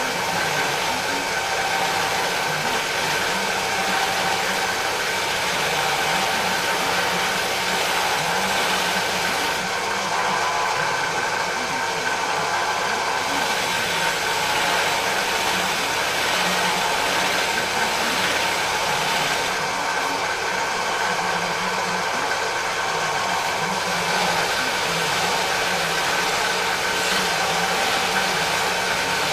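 Bench drill press running with an abrasive sanding wheel in its chuck, a wooden workpiece pressed against it: a steady motor whir under a sanding hiss. The hiss eases for a few seconds about ten seconds in and again about twenty seconds in.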